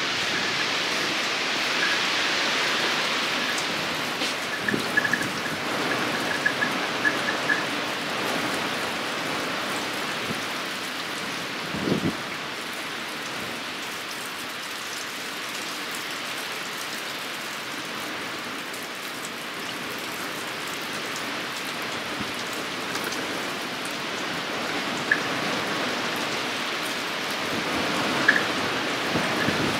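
Moderate rain falling steadily in a windstorm, with a few light ticks and one short low thump about twelve seconds in.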